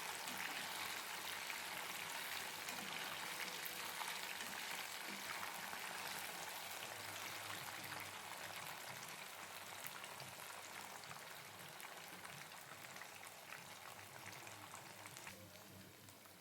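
Food frying in hot oil: a dense sizzle full of small crackles that slowly dies down, growing quieter through the whole stretch.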